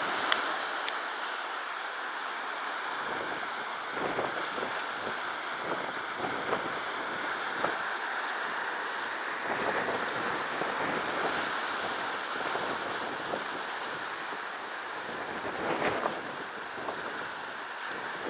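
Sea water lapping and splashing below, with an irregular run of small slaps, over steady wind noise on the microphone.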